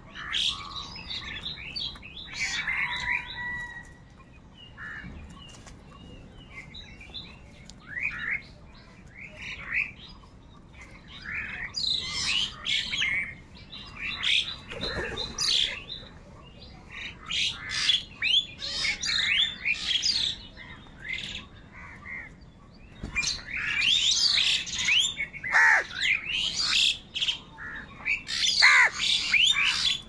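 House crows squawking and calling over grain, mixed with higher chirps from other birds. The calls come in clusters with short gaps and grow busier and louder toward the end.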